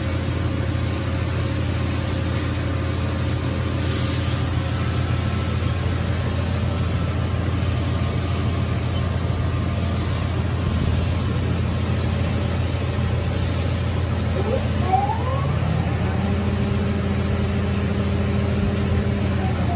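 Haas VF-2SS machining center running a spindle test program, with a steady low hum. About sixteen seconds in, a whine rises in pitch as the spindle speeds up, holds steady, and drops away near the end as the spindle slows.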